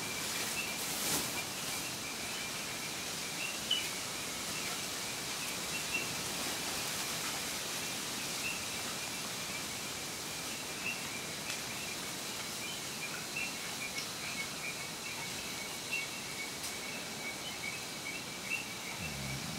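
A continuous night chorus of frogs, many rapid, high-pitched calls overlapping without pause, over a steady hiss of wind.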